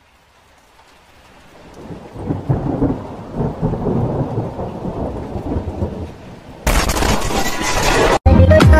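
Thunder rumbling, swelling up from silence over the first couple of seconds and rolling on irregularly. Near the end it gives way to a louder, harsher burst of crashing noise lasting about a second and a half.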